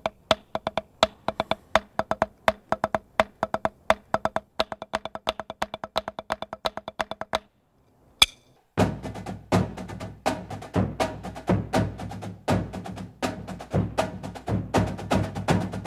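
Flam accent exercise played with drumsticks on a Dynasty practice pad set on a marching snare drum: a steady stream of sharp, dry taps with accented strokes. After a short pause and a single sharp click about eight seconds in, a full marching drum line of snare and tenor drums takes up the exercise, much louder and fuller, with low drum tones.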